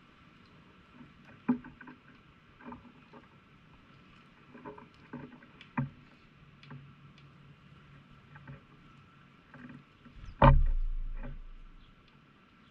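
Scattered taps and knocks of birds pecking at peanuts and seed close to the microphone, with one loud thump about ten seconds in whose low hum fades over a second or so.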